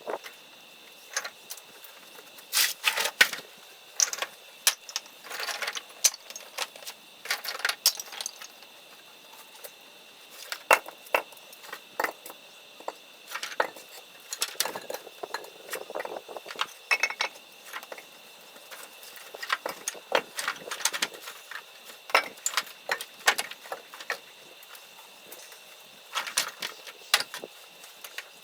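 Pieces of dry firewood knocking and clattering against each other as they are handled: irregular sharp clicks and knocks, some in quick clusters.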